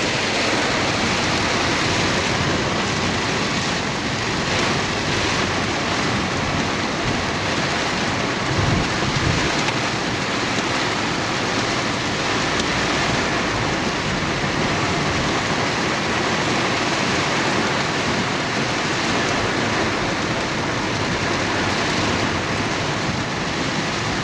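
Heavy rain pouring down steadily, a dense even hiss of downpour. A brief low rumble comes about nine seconds in.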